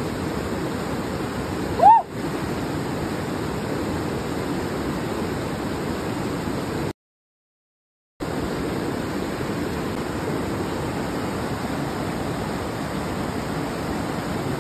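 Mountain river rapids rushing steadily over rocks. About two seconds in there is one brief, loud, high-pitched sound that rises and falls in pitch. The sound cuts out completely for about a second midway.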